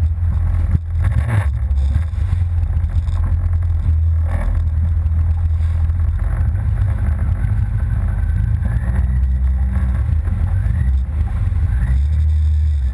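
Yamaha FZS personal watercraft engine running steadily at speed, with wind buffeting the action-camera microphone. Sharp hits sound about a second in and again past four seconds, as the hull comes down on the waves.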